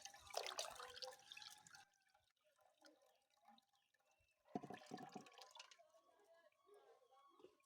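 Liquid pouring and splashing for about the first two seconds, then faint scattered knocks.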